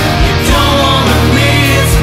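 Loud rock music with guitar and a singing voice.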